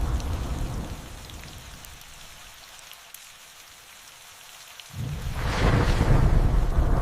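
Thunderstorm: steady rain hiss with scattered drop ticks, a low thunder rumble dying away over the first two seconds, then a new thunderclap breaking in suddenly about five seconds in and rumbling loudly.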